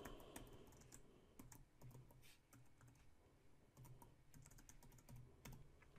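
Faint typing on a computer keyboard: soft, irregular keystrokes.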